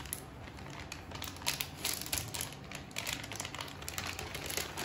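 Irregular light taps, clicks and rustling of hands working potato-filled dough on a surface, over a faint steady low hum.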